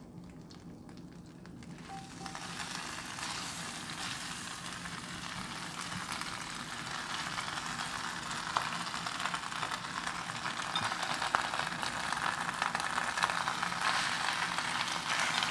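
Pechay (bok choy) leaves sizzling in a frying pan of hot oil left from sautéing shrimp paste and garlic. The sizzle starts about two seconds in and grows steadily louder, with fine crackling.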